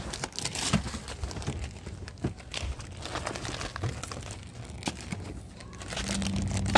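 Rustling and crinkling from handled material, such as paper or plastic packaging or toy props, made up of many small irregular clicks. A low steady hum comes in near the end, and a single sharp click closes the window.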